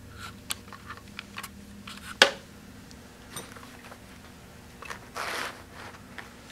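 Handling noise of an AR-15 rifle being moved around in a padded case: scattered light clicks, one sharp knock about two seconds in, and a short brushing rustle about five seconds in.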